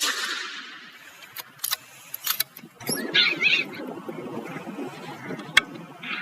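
The echo of a gunshot fades away over the first second. A few sharp clicks follow, then a brief, wavering, high-pitched animal squeal about three seconds in, over low rustling.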